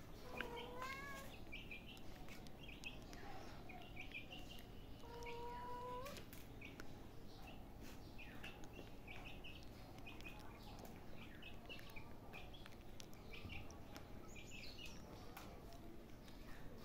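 Small birds chirping repeatedly in short, high notes. Twice, near the start and about five seconds in, there is a longer, steady pitched call.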